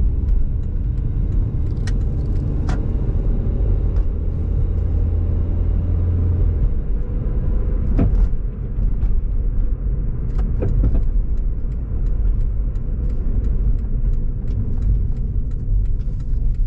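A car driving on city streets: steady low road and engine rumble, with a stronger engine hum for the first six seconds or so, and occasional light clicks or rattles.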